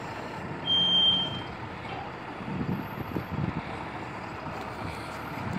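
Heavy recovery truck's engine running steadily while its crane lifts a load. About a second in, a single high electronic warning beep sounds for under a second.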